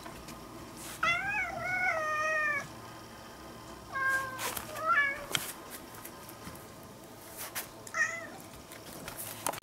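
A cat meowing: one long meow with a wavering pitch about a second in, then shorter meows around the middle and one brief meow near the end.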